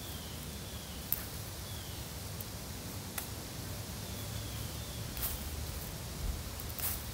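Leaves and plant stems rustling and snapping now and then as they are picked by hand from the undergrowth. Faint short falling whistles recur every second or two.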